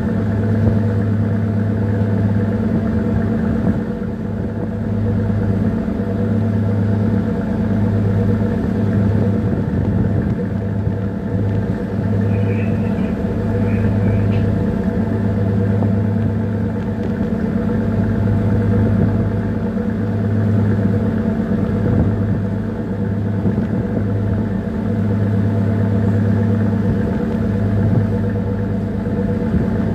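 Small tanker's diesel engine running under way, a steady deep drone whose lowest hum swells and drops unevenly.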